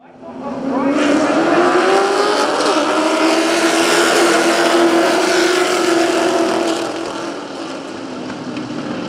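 A field of short-track race cars at full throttle, several engines running together and rising in pitch as the pack accelerates past the flag stand. The engine sound eases off a little about seven seconds in as the cars head into the turn, then rises again.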